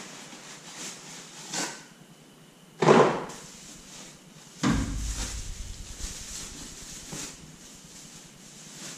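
Cardboard packaging and a cloth-wrapped steering wheel being handled and unboxed, with rustling, a loud knock about three seconds in and a heavier, deeper thump a second and a half later.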